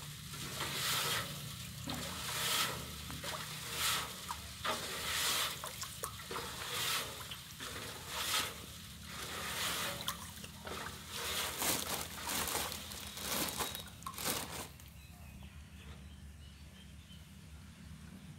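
Water sloshing and swishing in a large aluminium basin as a hand stirs it, about one stroke a second. The hand is dissolving table salt into the water to make a brine. The stirring stops about fifteen seconds in.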